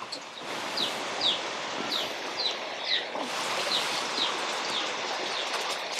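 Water running steadily as it pours from a tap and over boiled bamboo shoots in a pot for rinsing. Throughout, a bird repeats a short high falling chirp about twice a second.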